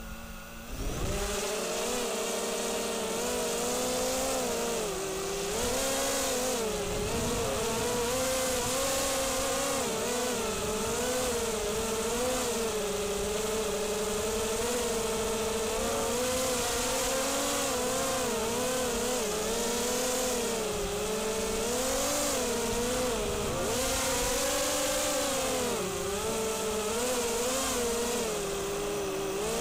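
ZMR250 FPV racing quadcopter's brushless motors (2204 2300kv with Gemfan 5045 props) spinning up and flying. A buzzing whine whose pitch rises and falls with the throttle.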